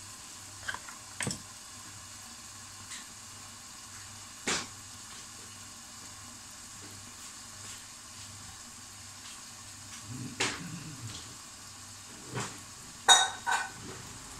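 Pan of liver stew cooking under its lid with a steady soft sizzle and a few light pops. A sharp metallic clink rings out near the end.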